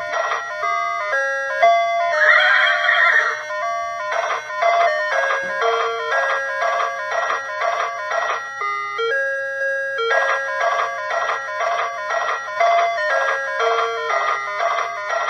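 Ice cream van chimes playing a jingly tune of quick, evenly stepped notes. The tune breaks off briefly a little after the middle and starts again. A short hiss sounds about two seconds in.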